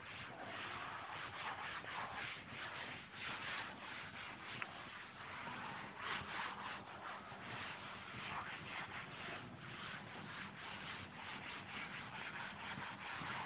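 A cloth duster wiping a chalkboard clean in repeated rubbing strokes, a steady swishing hiss.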